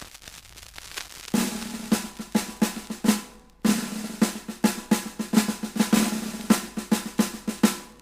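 Instrumental song intro: a drum beat with sharp snare hits over a held low note. It starts faintly, comes in loud about a second and a half in, and breaks off briefly around the middle before resuming.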